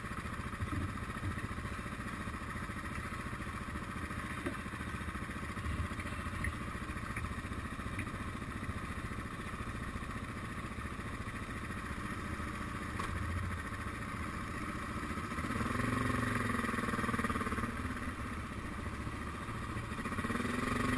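Suzuki DR650's single-cylinder engine running at low speed, heard close up from the bike. The engine note rises and falls in pitch twice near the end as the motorcycle moves forward.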